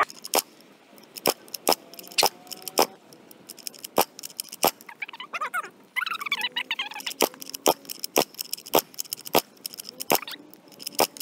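Sharp clicks and rattles, roughly one or two a second, as the pull-start of a Coolster kid's dirt bike's 50cc engine is worked. The engine never fires.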